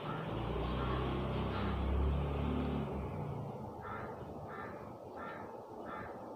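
A low rumble, like a vehicle going by, that swells to its loudest about two seconds in and dies away by three seconds. Then a bird caws four times in an even rhythm, about two-thirds of a second apart.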